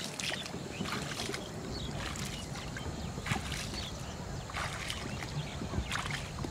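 A person wading through shallow canal water, with irregular splashes and sloshing as the legs push through it, roughly one step a second.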